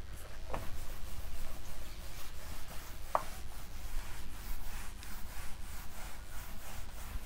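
Handwriting strokes: a run of quick, irregular scratching and rubbing strokes across a writing surface, with one short squeak about three seconds in.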